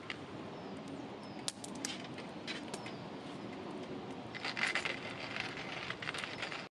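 Small stainless-steel hand-cranked coffee grinder grinding beans, making many small sharp clicks. The clicking grows dense and loud about four and a half seconds in, then cuts off suddenly just before the end.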